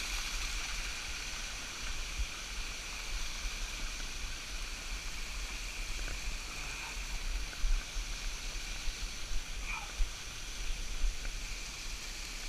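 Steady rush of running water from a jungle creek and its small waterfalls, with low bumps and a few sharper jolts from wind and handling on the microphone.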